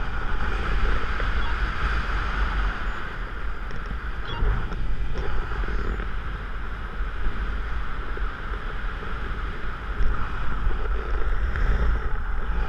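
Wind rushing over the camera microphone of a paraglider in flight: a steady noise with heavy low buffeting.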